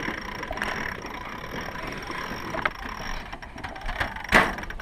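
Sailboat winch ratcheting with rapid clicks as the mainsail is hoisted. A brief, loud rush of noise comes about four seconds in.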